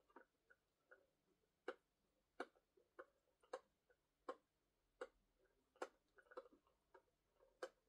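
Near silence broken by faint, irregular clicks, about one every half to three-quarters of a second, from small plastic parts being handled.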